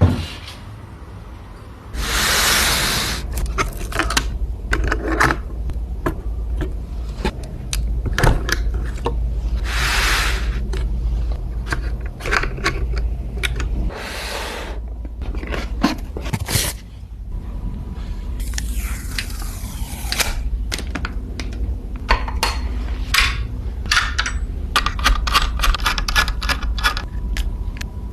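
Computer parts being handled and fitted during a PC build: many sharp plastic and metal clicks and clatters, with several brief scraping or rustling sounds, over a steady low rumble.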